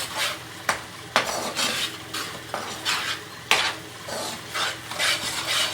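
A cooking utensil stirring and scraping in a frying pan, with a handful of sharp clinks against the pan, over the steady sizzle of onions and spices frying in oil.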